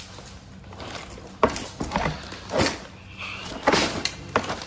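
Clear plastic wrapping on a new car side step rustling and crinkling in a few short bursts as it is handled.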